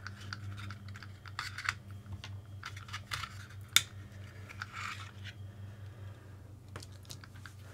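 Small clicks, taps and light rattles of plastic and metal RC car parts being handled and unscrewed while the motor cover is taken off, with one sharper click about four seconds in.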